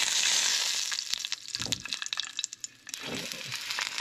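Smoked dove meat sizzling and crackling in hot olive oil in a nonstick frying pan as the pieces are laid in to sear. The hiss is loudest at the start, thins out about halfway through, and picks up again near the end.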